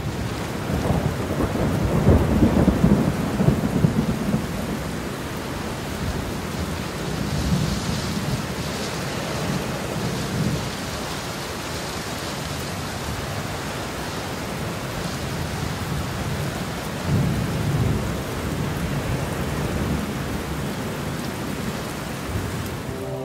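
Steady rain with rolling thunder, the rumbles swelling about two to four seconds in and again about seventeen seconds in.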